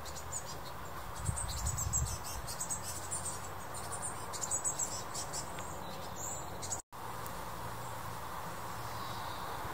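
Insects chirping in rapid, high, stuttering bursts over a steady outdoor hiss; the chirping cuts off suddenly about seven seconds in, leaving only the hiss.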